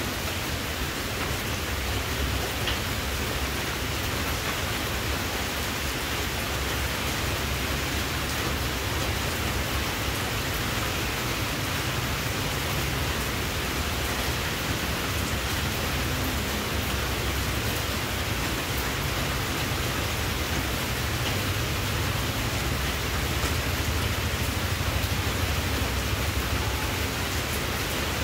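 Steady, even hiss with a low rumble underneath and no distinct events.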